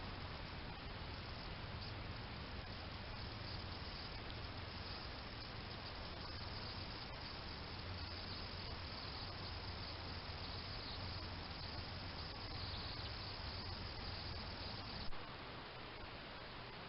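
Crickets chirping in a steady insect chorus over the recorder's hiss and a low hum. The chorus cuts off with a single click near the end.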